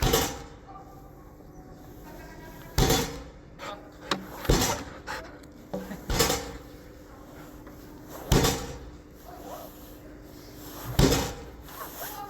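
Dog agility seesaw plank banging down onto its base, about six loud bangs at uneven intervals of roughly two seconds, with smaller knocks in between.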